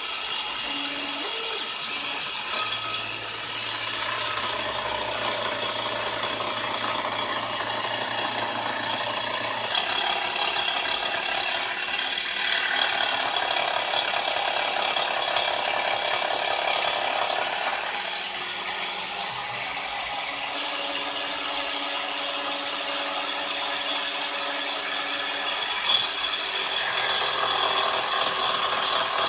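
Bosch angle grinder running a 100 mm carbide-tipped circular saw blade, steadily cutting through aluminium plate as a CNC router feeds it along: a continuous loud, hissing cutting noise that shifts a little in tone as the cut goes on.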